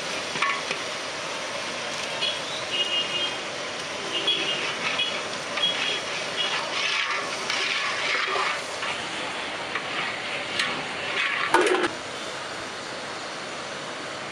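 Steady street traffic noise with several short high-pitched beeps, like vehicle horn toots. A sharp knock about eleven and a half seconds in is the loudest moment.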